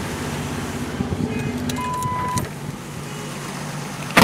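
The 1965 Jeep CJ5's engine idling cold on an electronic ignition retrofitted from a Ford XF Falcon, with the jump-start vehicle's engine running alongside until it is switched off about two and a half seconds in. A short beep comes just before, and a sharp knock near the end.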